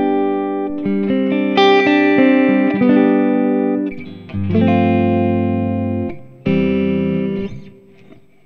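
Stratocaster-style electric guitar played through a Valeton GP-100 multi-effects unit on its clean preset: a slow series of clean, ringing chords. There is a short dip about four seconds in, and the last chord fades out near the end.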